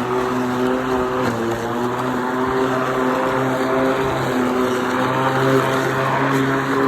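Hyper Tough 40-volt battery-powered electric lawn mower running with its blade cutting through tall grass. It makes a steady hum whose pitch shifts slightly up and down as the load changes.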